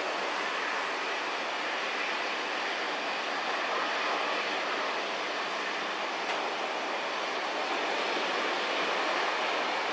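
Boeing 737-800's CFM56-7B jet engines at taxi power: a steady, even rushing hiss that holds level throughout.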